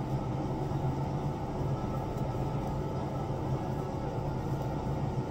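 Ventilation fan running with a steady low hum and an even hiss.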